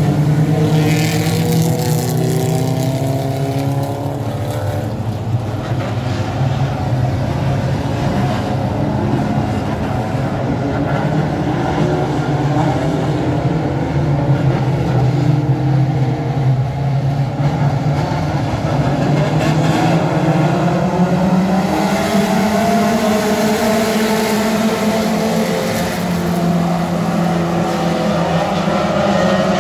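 A field of pure pony class dirt-track race cars running laps on a clay oval, several engines at once, their pitch rising and falling as they accelerate out of the turns and lift into them.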